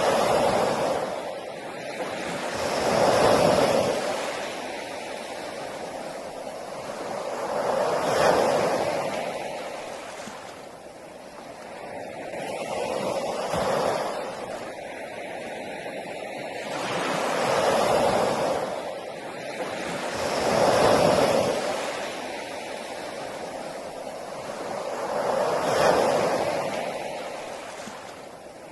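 Sea waves breaking on a beach one after another, each surge swelling up and dying away about every four to five seconds.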